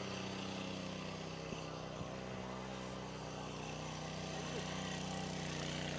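Engine of a motorcycle-based rotavator running steadily under load as its tines dig into the soil, a constant even drone.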